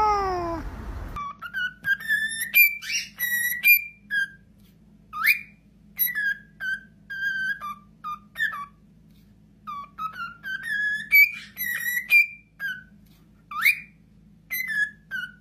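A cat's drawn-out meow ends about a second in. Then a cockatiel whistles a tune of clear notes and quick upward slides, and repeats the same phrase about midway through.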